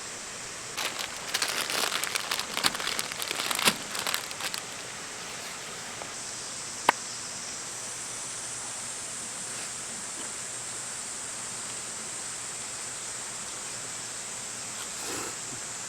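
A flurry of rustling and crinkling clicks lasting about four seconds, then a single sharp click about seven seconds in, over a steady high hiss.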